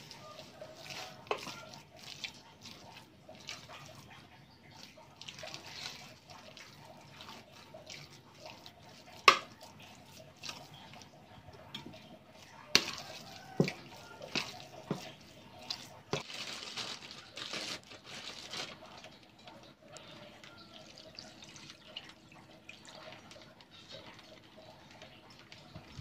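Wet squelching and slapping of ground pork and red curry paste being mixed and kneaded by spatula and hand in a stainless steel pot, with occasional sharp knocks against the pot, the loudest about nine seconds in.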